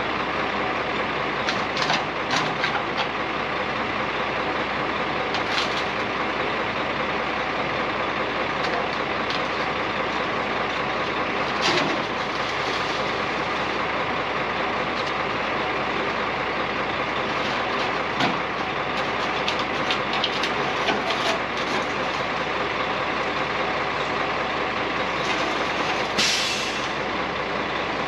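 Grain truck engine running steadily while the truck is pulled up and straightened out, with a few sharp knocks and clunks. A short hiss of air comes near the end.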